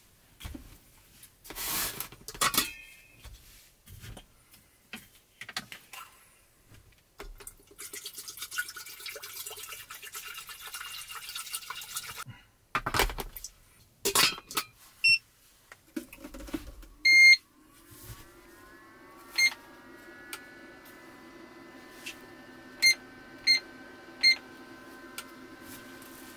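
An electric glass kettle is handled and set up with a clatter of clicks and knocks. Past the middle it is switched on: several short beeps come from its control panel, and a steady hum sets in as it begins heating.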